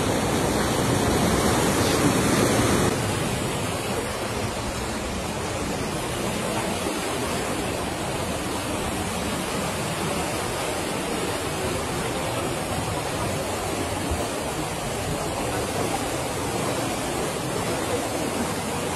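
Steady rush of fast-flowing, churning river water, a little louder for the first three seconds, then steady.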